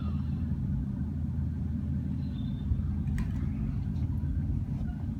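A steady low rumble with a faint mechanical hum, and a faint click about three seconds in.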